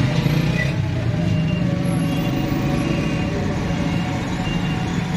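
A steady, loud low mechanical hum, like running engines or a motor, holding evenly with no break.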